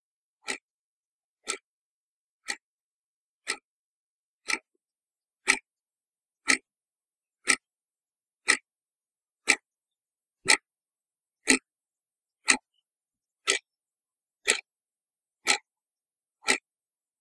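Clock ticking steadily once a second, with dead silence between the ticks. The ticks grow louder over the first five seconds or so and then hold.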